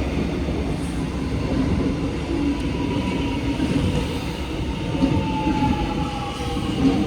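Metro X'Trapolis electric train running into the station with a steady rumble of wheels on the rails. A faint whine slowly falls in pitch as the train slows.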